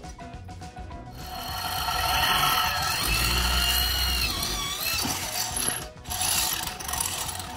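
Electric drill boring a hole through a square metal tube. The motor spins up about a second in, its pitch sagging and recovering as the bit bites. It stops briefly near the end, then starts again.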